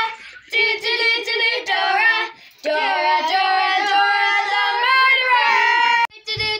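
A child singing: a few short phrases, then one long phrase of drawn-out, wavering notes from about two and a half seconds in until a brief break near the end.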